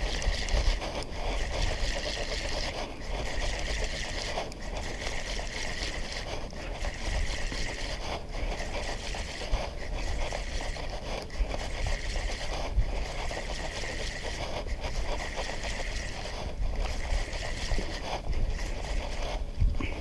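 Steady rush of wind and sea noise on an action camera's microphone, with a low rumble and brief dips about every two seconds.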